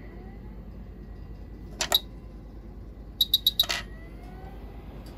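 Quick 881D hot air rework station running just after power-on, a faint rising whine as its air flow spins up over a low steady hum. One sharp click about two seconds in, then a quick run of five or six short clicks a little after three seconds.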